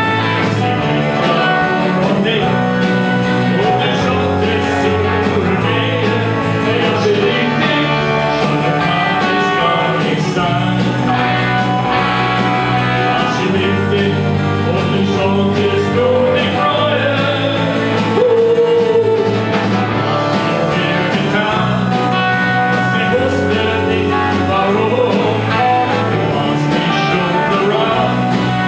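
Live rock band playing a song: guitar and drums with a singing voice, on a steady beat.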